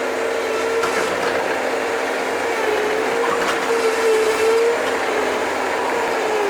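Bobcat's engine running steadily as it digs, its pitch wavering slightly up and down.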